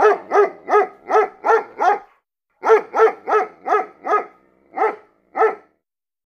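A dog barking in quick, even barks, about three a second: a run of six, a short pause, then about seven more that slow toward the end.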